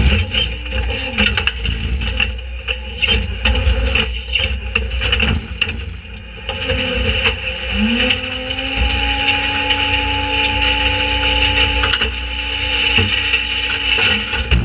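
Leach rear-loader garbage truck's hydraulic packer blade crushing a white cabinet in the hopper: repeated cracking and snapping of breaking panels over the first several seconds, over the steady hum and whine of the diesel engine and hydraulics. About eight seconds in, the machine's pitch rises and holds as the blade cycle continues.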